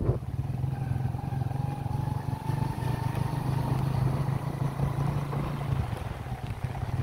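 Motorcycle engine running steadily under way, with a low, fast, even pulse. A faint whine rises slowly in pitch over the first few seconds.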